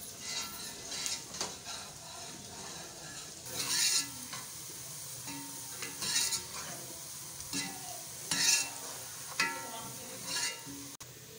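Sliced onions sizzling in hot oil in a stainless steel pot, being fried until light brown, while a steel ladle stirs them, scraping and clinking against the pot about every two seconds.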